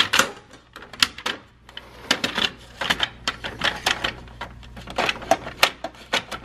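Quarters clicking and clinking as they are loaded into the coin tubes of a vending machine's coin changer: irregular metallic clicks, several a second, over a low steady hum.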